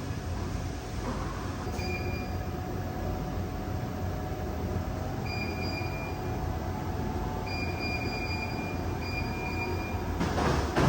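Gym treadmill running with a steady rumble, its belt giving a high squeal in short stretches, four times. Louder knocking starts near the end.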